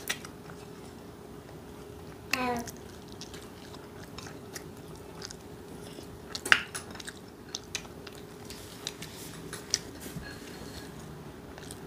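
Close-up eating sounds: scattered crisp bites and chewing of fried food, the loudest crunch about six and a half seconds in, over a steady faint hum.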